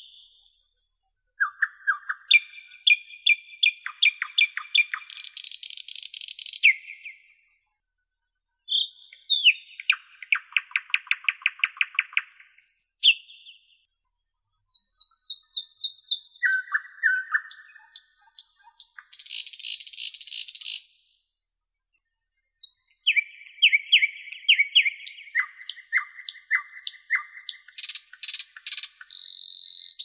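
Nightingale singing four varied song phrases separated by short pauses. The phrases are built of rapid runs of repeated notes, clear whistled notes and harsh rattling trills.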